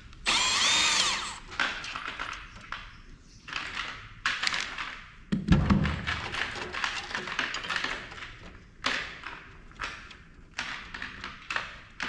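Tools working on a thermal printer's metal and plastic parts during disassembly: a loud high-pitched sound for about a second at the start, then repeated clicks and clatter, with one heavy thump midway.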